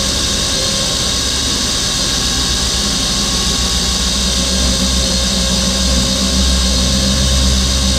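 Small electric RC car motor and drivetrain running at full throttle on a roller dyno, the rear tyres spinning a roller at around 4,000 to 5,000 rpm: a steady high whine over a low rolling rumble.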